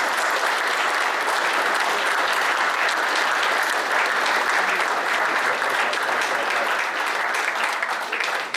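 Audience applauding: dense, steady clapping from many hands, dying away at the very end.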